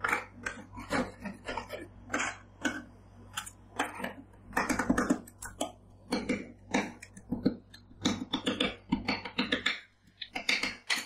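Two steel spatulas chopping cherry tomatoes against a steel ice cream roll plate: rapid, irregular metal clacks and taps, thickest about halfway through.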